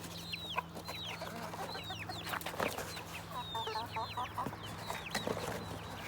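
Chicks peeping: many short, high cheeps that fall in pitch, with a brief run of lower clucks from a hen about halfway through.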